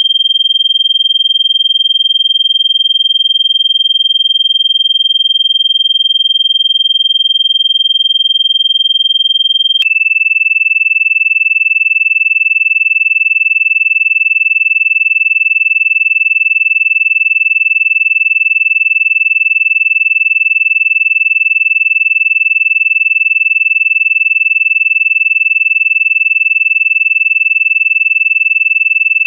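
Electronically generated Rife frequency tones: a loud, steady, high-pitched pure tone that steps down slightly in pitch about ten seconds in and then holds steady, with a faint lower tone beneath it.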